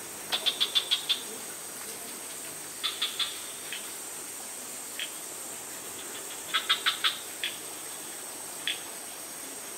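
An animal calling in quick runs of short, sharp chirps, five or six at a time: three runs, with a few single chirps between them. Under them runs a steady high hiss.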